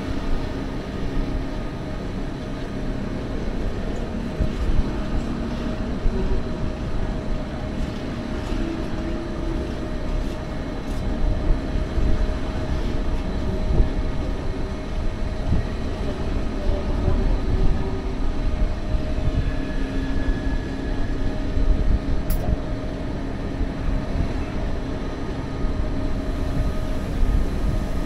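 Electric rack-railway train of the Gornergrat line running steadily downhill, heard from outside the carriage: a continuous rumble with a steady whine from the drive.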